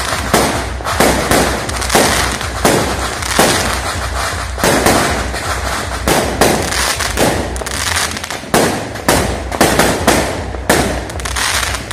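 A multi-shot firework cake firing aerial shells that burst overhead one after another, about two sharp bangs a second with crackle in between.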